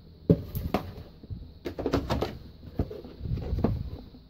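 A cardboard laundry detergent box being handled and its flap pulled open: a series of short knocks and scrapes.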